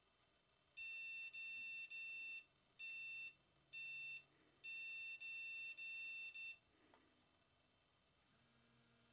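Petainer dog training collar beeping in tone mode: a run of high-pitched electronic beeps, each about half a second long, in bunches of three, one, one and four, stopping about six and a half seconds in.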